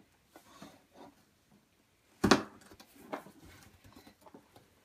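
Fingernails picking and scratching at the packing tape on a cardboard shipping box, with a sharp crack about two seconds in, followed by a smaller one a second later.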